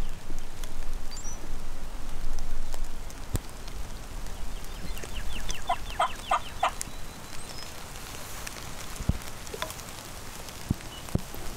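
Turkey calling: a quick run of about a dozen short, falling notes over roughly two seconds, starting about five seconds in. Steady rain hiss runs underneath, with a few sharp knocks.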